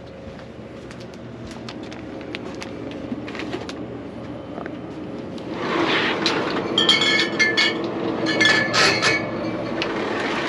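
A glass-door drinks cooler is opened: a rush of noise starts about halfway through, glass bottles clink and ring against each other as one is pulled off the shelf, and the cooler door slams shut hard at the very end. Light steps and clicks come before the door opens.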